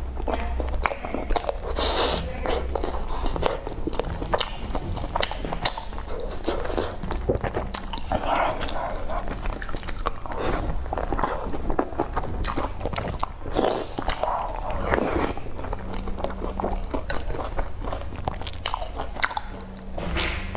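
Close-up eating sounds: wet chewing and biting of soft hot-pot foods such as fried tofu skin and sausage, with many small clicks and a few louder slurps as long strands are drawn into the mouth.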